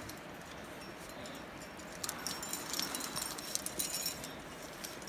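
Rack of metal climbing gear (cams and carabiners) on a climber's harness jangling and clinking as she moves up the rope. The jingling starts about two seconds in and lasts a couple of seconds.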